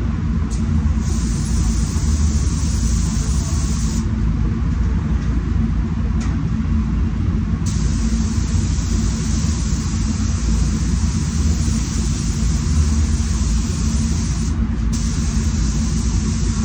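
Paint booth ventilation running with a steady low rumble, over the hiss of a SATA Jet 5000 RP spray gun spraying paint. The hiss stops for a few seconds near the start and again briefly near the end, as the trigger is released between passes.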